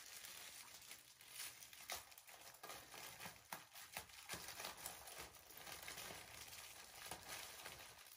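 Faint, irregular crinkling and rustling of a plastic mailer bag as it is handled and pulled open.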